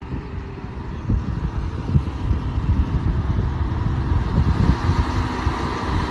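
Small aircraft's engine noise over a heavy, gusty low rumble of wind on the microphone.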